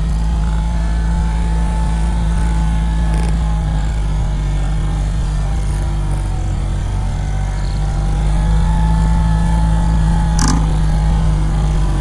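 Modified UAZ off-road truck's engine running steadily under load as it crawls through loose, dug-up soil, with a faint whine above the drone and a sharp knock about ten seconds in.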